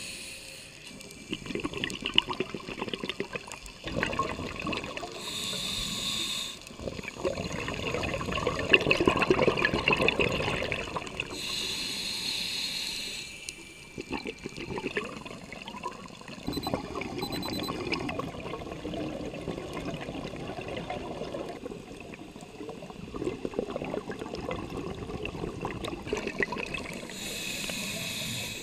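A scuba diver breathing through a regulator, heard underwater: long stretches of gurgling exhaled bubbles, broken a few times by a short hiss as a breath is drawn.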